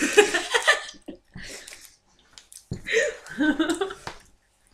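Women laughing, with breathy bursts between short bouts of voiced laughter.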